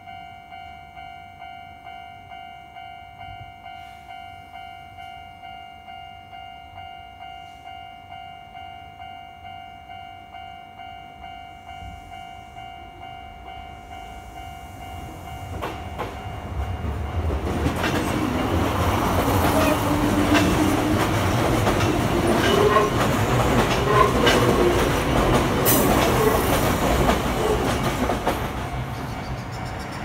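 Japanese level-crossing alarm ringing about twice a second, cutting off about halfway through. A Kintetsu Nagano Line electric train then passes over the crossing, a loud rumble with wheels clacking over the rail joints, which eases off near the end.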